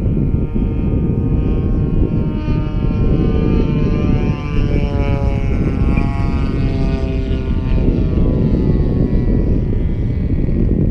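Radio-controlled model airplane's engine and propeller at reduced throttle on landing approach, passing by with its pitch falling after about five seconds. Low wind rumble on the microphone underneath.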